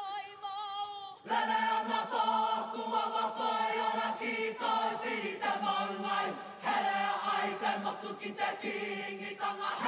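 Māori kapa haka group singing a chant in unison, the women's voices to the fore. A single wavering high voice leads for about a second before the full group comes in, singing in held phrases with brief breaks between them.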